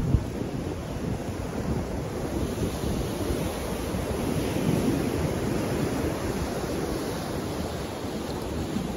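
Sea surf breaking against the concrete tetrapods of a breakwater, a continuous rushing wash that swells about halfway through, with wind buffeting the microphone. A short sharp thump right at the start.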